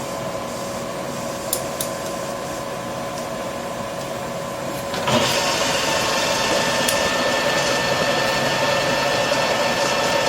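Metal lathe running steadily with a constant whine of motor and gearing, its spindle turning the chucked disc. About five seconds in the sound steps up, louder and hissier.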